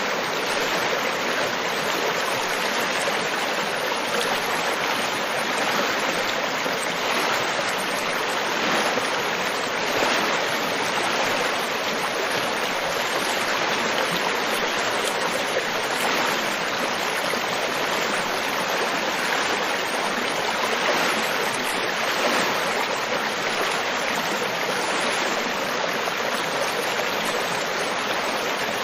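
River water flowing: a steady rushing and babbling of a stream with no pauses.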